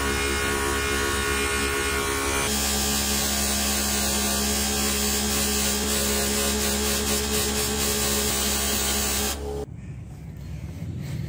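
A small electric motor, like a shop power tool, running at a steady speed with an even buzz. It stops abruptly about nine and a half seconds in, and a quieter low rumble follows.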